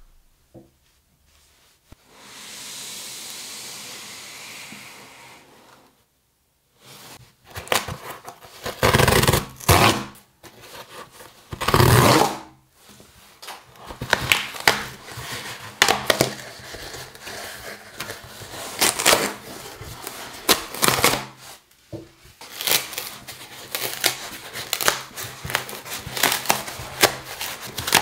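Corrugated cardboard shipping box torn open along its tear strip: ripping, scraping and crinkling of cardboard with frequent sharp clicks, the loudest rips about nine and twelve seconds in. A steady hiss runs for a few seconds near the start.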